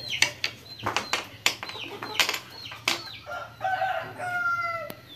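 Chickens clucking in short, irregular calls, then from about three seconds in a longer, drawn-out chicken call of a second and a half.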